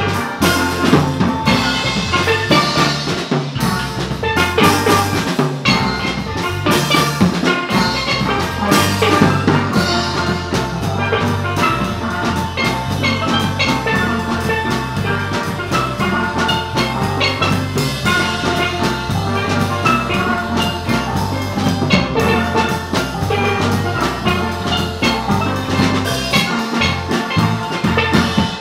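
A steel band playing live: several steelpans struck with mallets, over an electric bass guitar and a drum kit with cymbals, in a steady beat.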